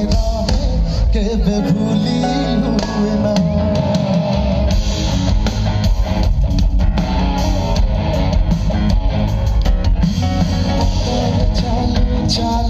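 A live band playing loud amplified music through a PA system, heard from the audience seats, with guitar to the fore over a steady bass and drums.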